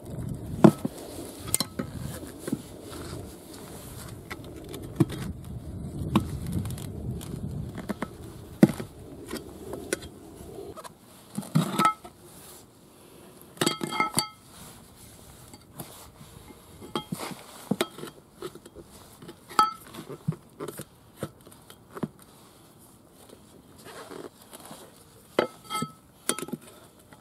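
Steel tire levers clinking and scraping against the rusted steel rim of a Yanmar YM1500 tractor wheel while prying at a tire bead stuck fast to the rim: irregular sharp metallic clinks, some with a short ring, over a low rustling of handling in about the first ten seconds.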